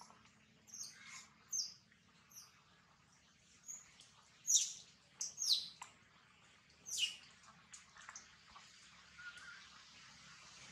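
Birds chirping in the forest: about ten short, high-pitched chirps, each falling quickly in pitch, scattered irregularly over a faint steady background.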